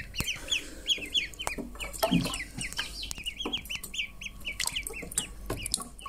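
A brood of six-day-old ducklings peeping without a break, many short falling peeps overlapping, with a few soft taps among them.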